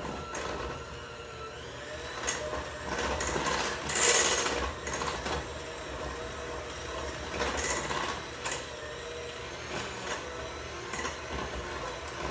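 Electric mixer motor running steadily, beating a stiff cake batter after the last of the flour has gone in, with several short louder bursts of noise, the loudest about four seconds in.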